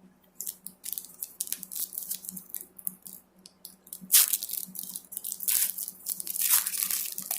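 Foil wrapper of a trading card pack crinkling and tearing as it is opened, with a run of crackling and two louder rips about four and six and a half seconds in.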